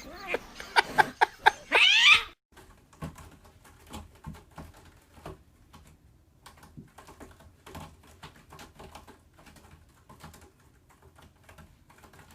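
Loud vocal sounds with pitch sweeping up and down for about two seconds, then, after an abrupt cut, faint irregular clicking and tapping from a kitten playing with a toy on a carpet.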